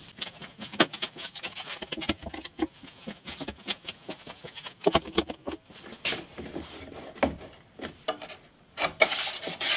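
One-handed bar clamps being set and squeezed tight on a wooden caul, giving scattered clicks and knocks of plastic and wood. A scraping rub comes in near the end.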